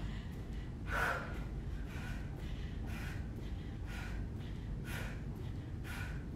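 A woman breathing hard while doing jumping jacks: a short, breathy exhale about once a second, in time with the jumps.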